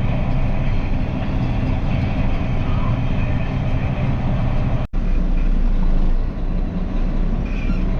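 Truck engine running steadily, with a deep rumble. About five seconds in the sound cuts off abruptly and resumes as a heavier, deeper rumble.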